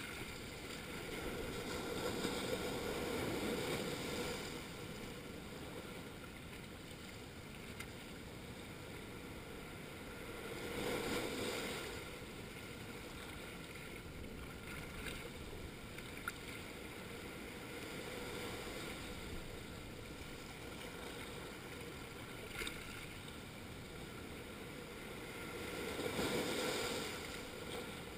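Small waves breaking and washing in over a rocky coral shoreline: a steady hiss of moving water that swells three times as waves surge in and then drains away.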